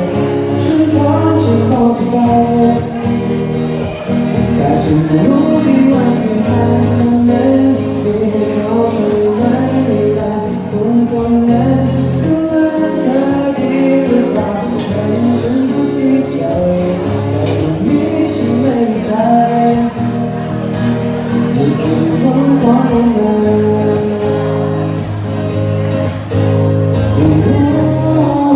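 Live band music with guitar prominent, playing a Thai pop song, with some singing over it.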